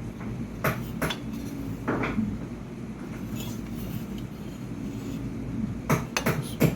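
Metal parts clinking and knocking as the mullion section and its connector fitting are handled: a few separate clinks early, then a quick run of them near the end.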